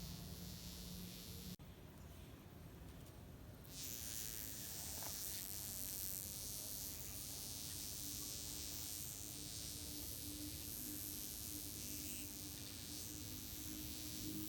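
A wasp buzzing with droopy wings that leave it unable to fly. The low buzz breaks off about a second and a half in, then returns as a steady, slightly higher buzz from about four seconds on.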